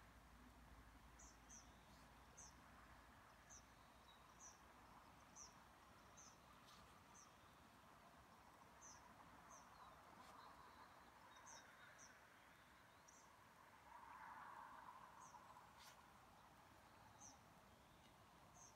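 Near silence: faint outdoor quiet broken by short, high-pitched chirps that repeat irregularly about once a second.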